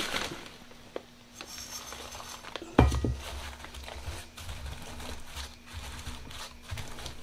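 Hands pressing and compacting loose burst charge of black-powder-coated rice hulls into a cardboard shell hemisphere, with light crinkling and scattered clicks. There is a single sharper knock about three seconds in, followed by dull low bumps.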